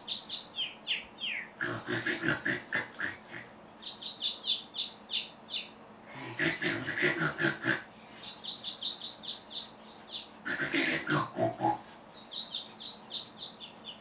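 Robotic parrot's sound track plays a comic sleeping routine: runs of quick falling chirpy whistles alternating with three rapid, pulsing snore-like grunts.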